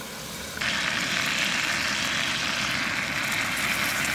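Deer tenderloin sizzling in bubbling butter in a small pan over a canister backpacking stove. About half a second in, a quieter steady hiss jumps suddenly to the louder sizzle, which holds steady.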